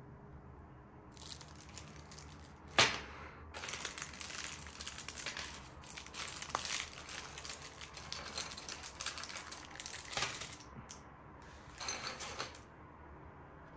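Hands handling a PC case fan and its packaging. About three seconds in there is one sharp snap, the loudest sound here, followed by a run of quick clicks, rattles and rustling, with a last short rustle near the end.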